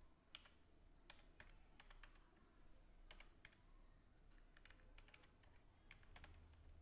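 Faint, irregular keystrokes on a computer keyboard as a phone number is typed in digit by digit.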